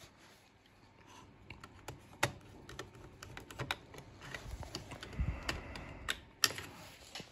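Small scattered clicks and taps of a screwdriver and a wire link being worked into the screw terminals of a Texecom Premier Elite expander board in its plastic case, starting after about a second and a half, with a few louder clicks and a dull knock among them.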